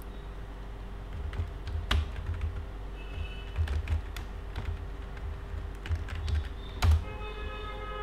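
Typing on a computer keyboard: irregular key clicks and soft thumps as a search query is entered, with a louder click about seven seconds in.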